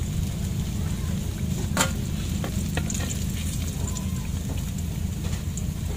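Food sizzling as it fries in a pan over an open flame, with a steady low rumble underneath and a sharp click about two seconds in.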